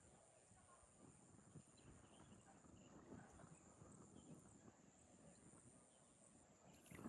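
Near silence: faint outdoor background with soft, irregular taps and a steady thin high-pitched hum.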